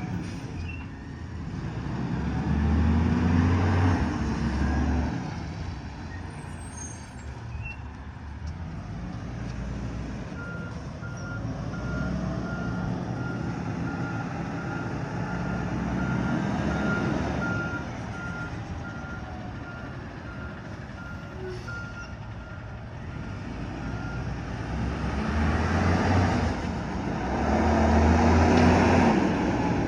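Heavy truck's engine rising in revs twice, with a reversing beeper sounding about once a second in the quieter stretch between.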